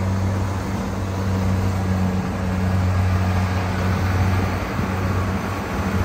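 A rice combine harvester's diesel engine running steadily under load while it cuts, a constant low drone over the machine's mechanical clatter.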